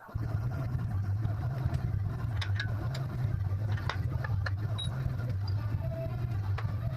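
Steady low mechanical hum, with scattered light clicks and clinks over it.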